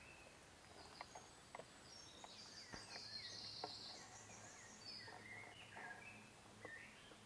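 Faint outdoor birdsong: scattered short chirps and whistles, with a higher, rapid trill about two to four seconds in, plus a few light clicks.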